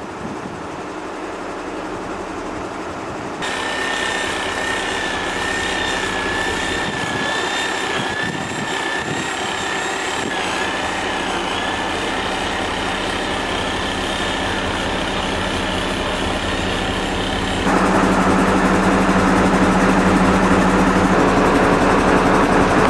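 A mobile crane's engine and hydraulics running steadily. A few seconds in, a wavering high whine joins the engine sound. About 18 s in, the sound abruptly gets louder and deeper, as if the engine is revving up under load.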